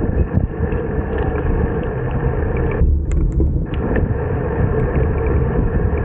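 Wind rushing over the microphone while riding a bicycle: a steady, loud rumble that briefly thins out about three seconds in.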